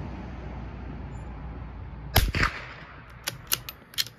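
Wind rumbling on the microphone, then a single .22 LR bolt-action rifle shot about two seconds in. A few sharp metallic clicks follow as the bolt is worked.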